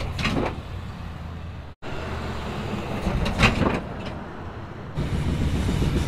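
Ford F-250 Super Duty pickup driving, a steady low engine and road rumble. It breaks off for an instant about two seconds in and comes back louder about five seconds in, at abrupt cuts between clips.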